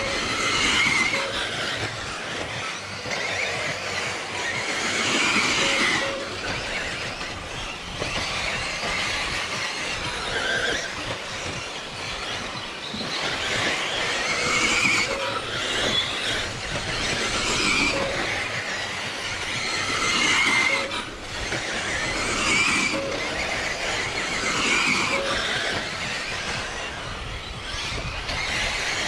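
Several radio-controlled off-road racing cars running laps together, their motors whining up and down in pitch as they accelerate and slow for the corners.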